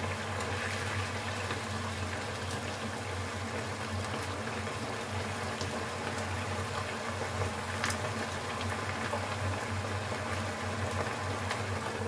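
Sweet-and-sour sauce with chicken, bell peppers and pineapple bubbling at a boil in a wok on a gas stove: a steady hiss with a low hum under it. A single sharp click comes about eight seconds in.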